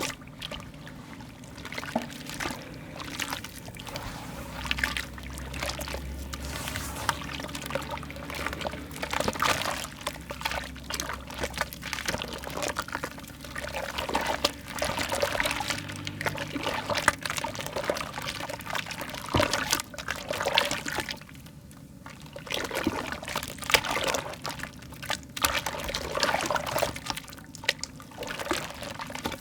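Soft wet mud being crumbled and squished by hand: a dense, irregular run of wet crackles and squelches.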